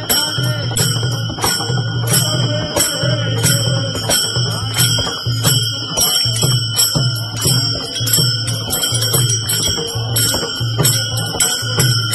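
Warkari bhajan playing: many pairs of small brass hand cymbals (taal) struck together in a steady, ringing rhythm, with a mridang drum beating a regular low pulse underneath.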